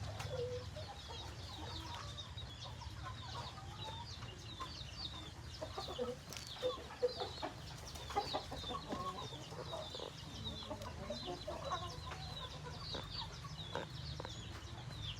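Chickens clucking in short, scattered calls, loudest around the middle, with a constant run of short high chirps over a steady low rumble.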